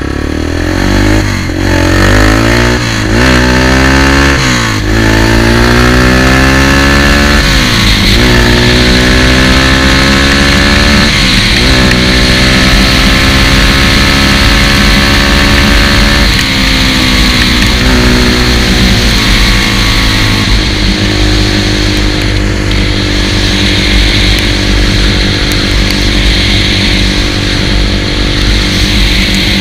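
ATV engine accelerating along a gravel road, its pitch climbing and dropping back at each of several gear changes, then holding a steady cruising speed, over a steady hiss.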